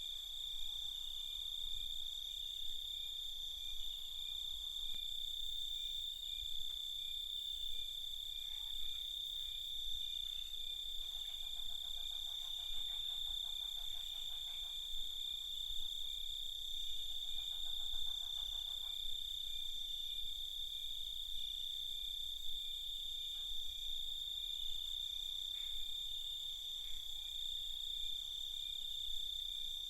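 Night chorus of crickets trilling in a steady, continuous high-pitched drone. A lower, rapidly pulsing call joins twice in the middle, for about four seconds and then about two.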